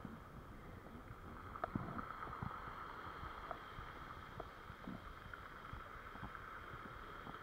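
Surf washing up a pebble beach, a steady hiss with wind on the microphone, broken by scattered faint clicks.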